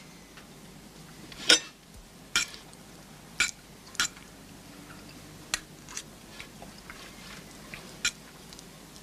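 Cutlery tapping and scraping on plates during a meal: several sharp, irregular clinks, the loudest about one and a half seconds in.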